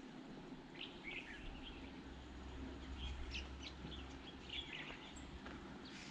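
Small birds chirping in short scattered calls, in clusters about a second in, around three seconds and near four and a half seconds, over a faint low rumble.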